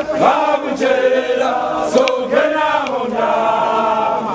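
Group of Ndebele men chanting and singing together in unison, many voices holding drawn-out notes that rise and fall.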